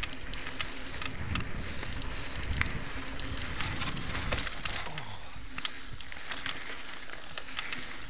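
Mountain bike riding fast along a dirt singletrack: tyres running over the dirt with a steady rush, and many sharp clicks and rattles from the bike jolting over bumps and twigs.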